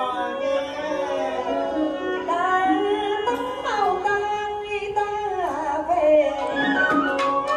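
Traditional Vietnamese water puppet theatre music: a drawn-out melody with sliding, bending pitches over sustained accompaniment, with sharp percussion strikes coming in near the end.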